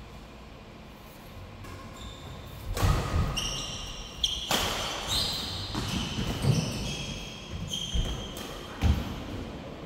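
Badminton doubles rally on an indoor mat court: several sharp racket strikes on the shuttlecock with heavy footfalls thudding, and short high shoe squeaks between the hits, starting about two and a half seconds in.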